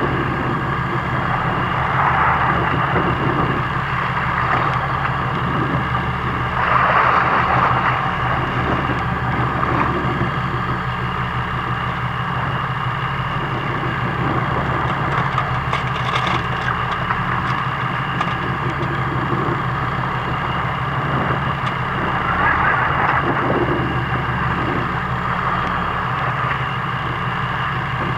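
Fishing boat's engine running steadily with a constant hum, with a few brief louder rushing swells of noise over it.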